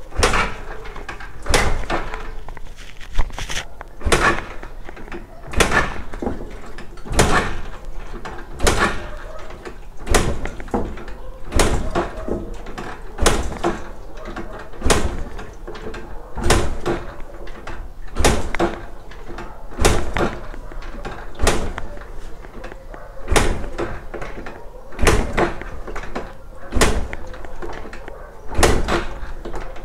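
A motorcycle engine being kicked over again and again with its kick-starter for a compression test: spark plug out, compression gauge in the plug hole, the engine turning over without firing. A sharp clunk about every second and a half.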